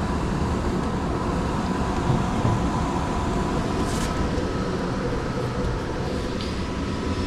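Central air system's indoor air handler running: a steady rush of blower air with a faint steady whine, and one light click about four seconds in.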